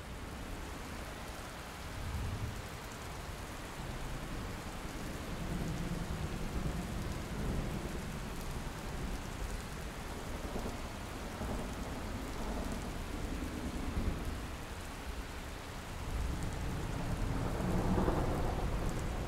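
Steady rain hiss under low rolling thunder rumbles that swell several times, loudest near the end.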